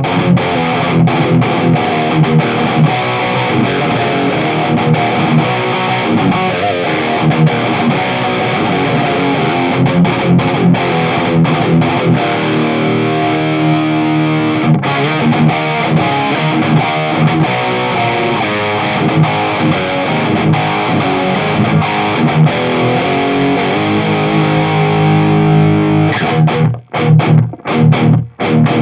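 Distorted electric guitar riffs from a 1995 Fender Stratocaster with a Seymour Duncan Distortion bridge pickup, played with no effects straight into a Mesa Boogie Badlander 25 amp head and a closed-back Mesa speaker cabinet. Near the end the playing turns to short, chopped chords with brief gaps between them.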